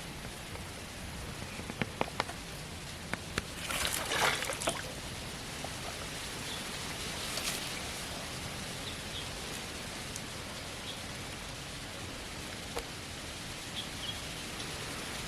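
Steady outdoor hiss with a few light ticks, and a short burst of water splashing about four seconds in, with a smaller splash a few seconds later.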